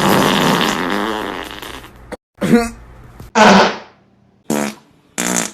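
Fart sound effects: one long raspy fart that fades out over about two seconds, then four short farts in quick succession, the first falling in pitch.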